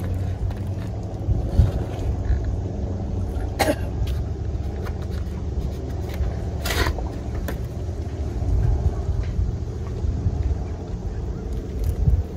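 Steady low rumble of a running vehicle engine, with two short knocks about four and seven seconds in.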